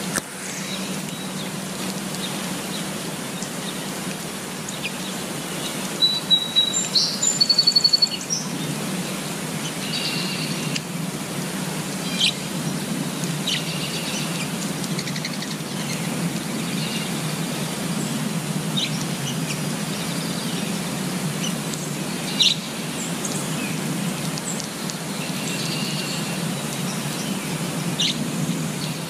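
Steady rain falling on leaves, with birds calling over it. A quick burst of high chirps about six to eight seconds in is the loudest sound, followed by single chirps every few seconds.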